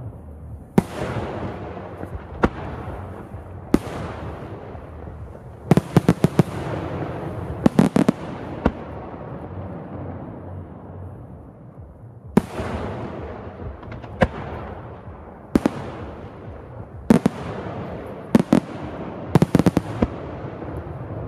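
Pirotecnica Senatore aerial firework shells bursting overhead, about a dozen sharp reports, each followed by a rolling echo. Several come in quick clusters of rapid cracks, about a third of the way in and again near the end.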